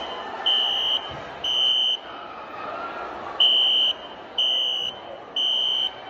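Fire alarm horn-strobe, a Wheelock NS-series electronic horn, sounding the code-3 (temporal-three) evacuation pattern: loud high-pitched beeps about half a second long, in groups of three with a pause of about a second and a half between groups. It is the last two beeps of one group, the pause, then a full group of three, over a steady background din.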